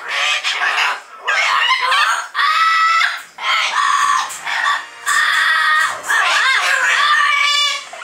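Double yellow-headed Amazon parrot calling loudly: a string of squawks and long, held calls, one after another with short breaks between them.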